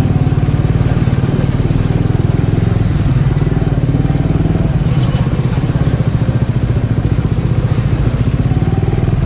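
Motorcycle engine running at low speed with a steady, rapid firing pulse, the bike being worked slowly through mud.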